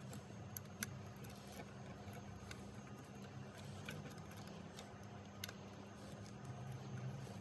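Faint clicks and light rustling from hands handling rubber vacuum hoses and a hex key on an engine's intake manifold, over a low steady hum; a sharp tick just under a second in is the loudest.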